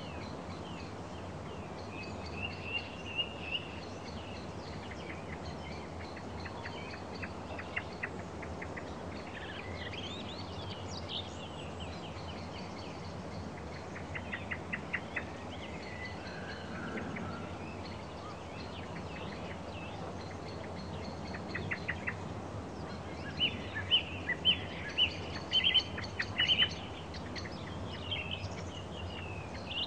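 Small songbirds chirping and trilling in short runs over a steady low background rumble of outdoor noise. The loudest run of sharp chirps comes a little before the end.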